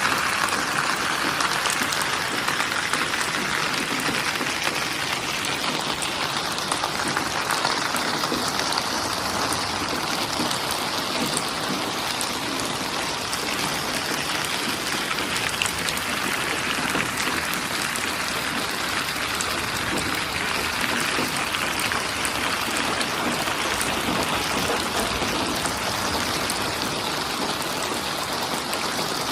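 Steady heavy rain, a dense patter of drops falling without a break.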